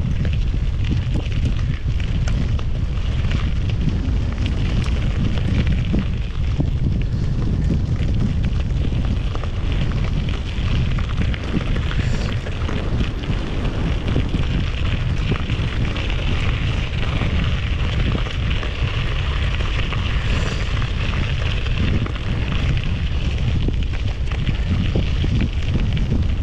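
Strong wind buffeting the microphone of a rider on a mountain bike going into a headwind: a steady, loud, low rumble with no breaks.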